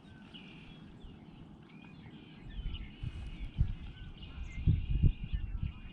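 Small birds chirping and trilling faintly in the background. From about two and a half seconds in, irregular low rumbles and thumps on the microphone come in and are the loudest sound.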